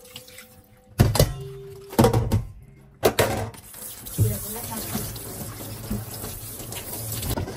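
A few knocks as a steel bowl and a raw duck are handled in a stainless-steel sink, then water running and splashing into the sink from about three seconds in as the duck is rinsed. Soft background music plays under it.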